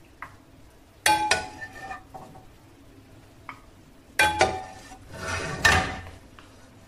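Metal spoon clinking and scraping against a frying pan and a ceramic serving dish while sauce is spooned out. Two sharp ringing clinks about three seconds apart, then about a second of scraping.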